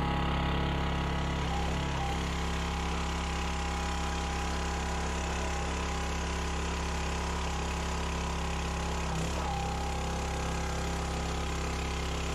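Engine and hydraulic pump of a County Line 25-ton log splitter running steadily while the ram cycles empty, out and back. The engine note changes about a second and a half in, as the ram starts to move, and changes again a little after nine seconds.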